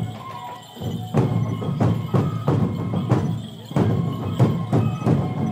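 Sansa dance music: drums struck in a brisk, steady rhythm, about three beats a second, after a short lull near the start, with a faint high melody held over the beat.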